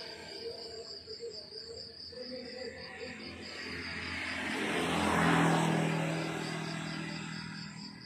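Crickets chirping in a steady high trill, about five pulses a second. A vehicle passes on the road, rising to the loudest point about five seconds in and fading away.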